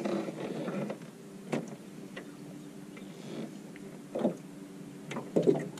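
An electric trolling motor hums steadily on the jon boat's bow, and a few sharp knocks land over it, the loudest near the end.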